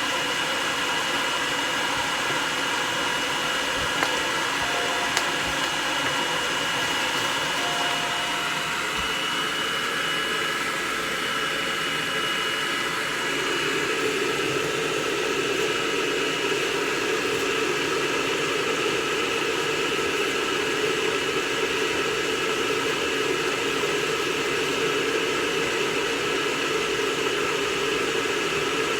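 Hair dryer running steadily, blowing a steady rush of air with a faint motor whine; its sound grows a little fuller about halfway through.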